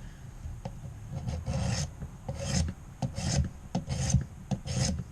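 A 320-grit sharpening stone on a guided knife sharpener being drawn across a clamped knife blade: repeated rasping strokes, about two a second.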